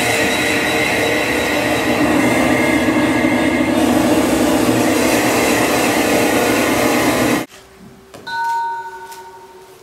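Dense electronic noise drone with several steady tones held through it, cutting off abruptly about seven and a half seconds in, followed by a few faint, thin electronic tones: computer-generated sound-art score.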